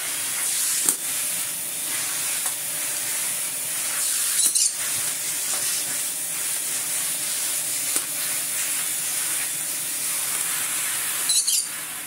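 Electrolux Z330 cylinder vacuum cleaner running: a steady rush of air drawn through its wands and floor tool, with two short louder rushes about four and a half seconds in and near the end.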